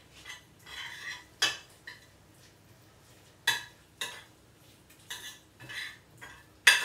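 A metal spoon stirring thick risotto in a white ceramic dish, with soft scraping and a few sharp clinks of the spoon against the dish.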